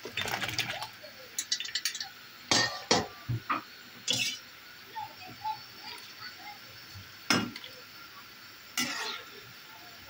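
Metal ladle clinking and knocking against the side of a steel pot while stirring mushrooms. The strikes are irregular: a quick cluster at the start, several loud knocks around three seconds in, and single sharp clinks about seven and nine seconds in.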